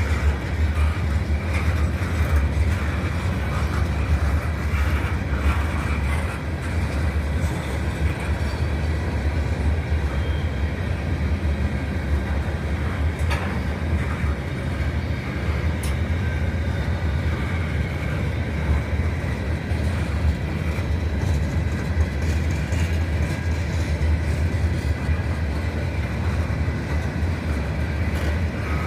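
Freight train cars rolling steadily past on the rails: a continuous deep rumble with wheel and rail noise.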